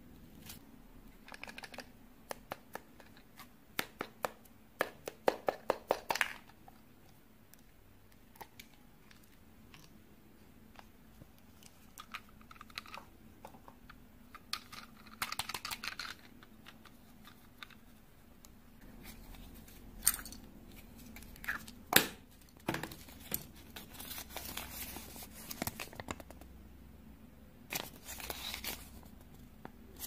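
Hands unwrapping chocolate surprise eggs: foil wrapper crinkling and tearing, with quick runs of sharp clicks and taps from plastic toy capsules. The clicks come in bursts, and there are crinkly stretches in between.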